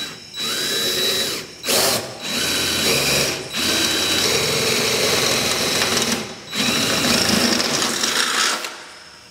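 Cordless drill boring a hole into the boat's aluminum deck. It runs in several bursts with short pauses, its whine rising as it spins up at the start, and the drilling is kept gentle so the hole isn't wallowed out.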